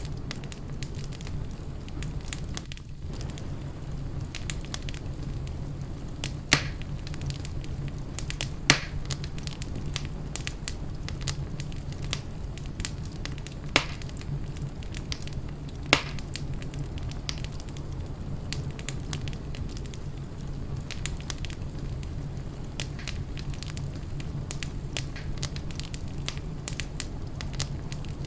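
Wood fire burning in a fireplace: a steady low rumble of flames with constant small crackles and four louder pops spread through the middle of the stretch.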